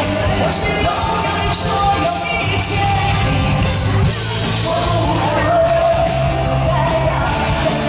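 Live rock band playing a ballad, with a steady drum and cymbal beat under a held melodic lead line.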